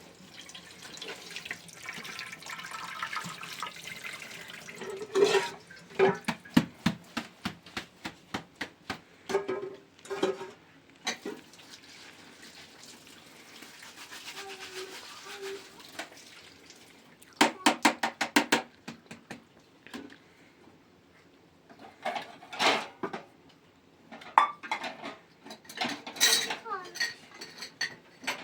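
Kitchen clatter: dishes and utensils knocking and clinking, with water running at times and a quick run of rapid knocks about two-thirds of the way through.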